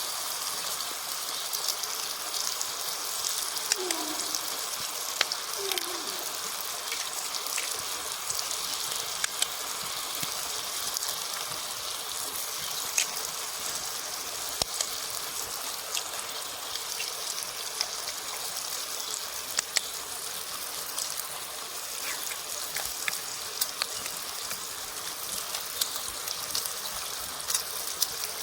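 Eggs frying in a pan over a wood fire: a steady sizzling hiss with scattered small pops and crackles.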